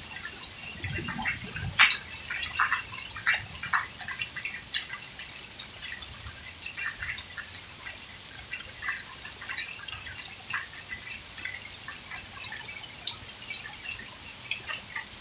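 Hailstorm: hailstones striking hard surfaces in scattered, irregular ticks and taps over a steady wash of running and dripping water. There are sharper single strikes about two seconds in and again near the end.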